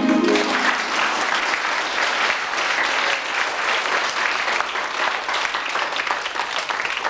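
Audience of schoolchildren applauding, the clapping starting as the dance music cuts off just after the start and slowly thinning toward the end.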